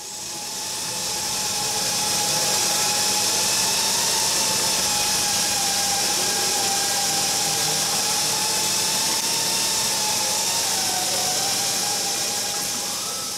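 Steady mechanical drone with a strong high hiss and a slowly wavering whine, fading in over the first couple of seconds and easing off near the end.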